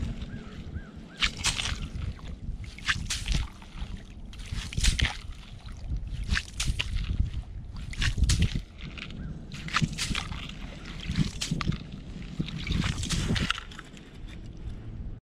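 Plastic ice skimmer scooping slush and ice chips out of an ice-fishing hole: repeated wet sloshing and scraping scoops, roughly one every second or so.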